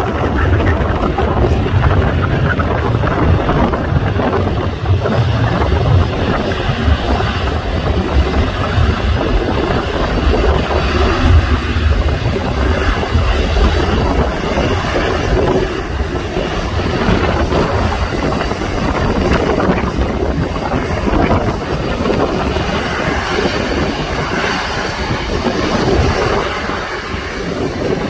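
Wind buffeting the phone's microphone: a loud, steady rushing noise with a fluttering low rumble.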